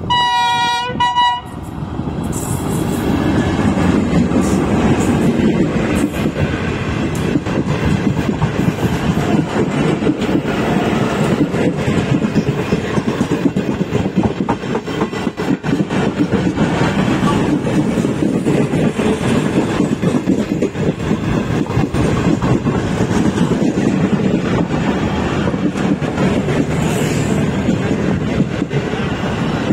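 Diesel locomotive horn blows once for about a second and a half, then a passenger train passes close by: a loud, steady rumble of wheels on rail with the clickety-clack of coaches going over the rail joints.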